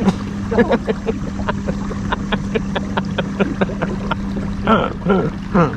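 A small boat motor hums steadily. Over it comes a run of short, rapid pitched pulses, several a second, and then a few falling cries near the end.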